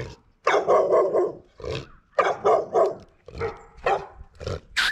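Dogs barking repeatedly in short bursts. Near the end a brief sharp hiss: a marine air horn that has frozen up and fails to sound properly.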